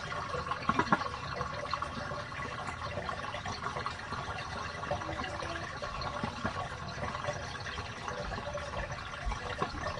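Hot wash water draining out of a portable RV washing machine into a laundry-room sink: a steady run of water.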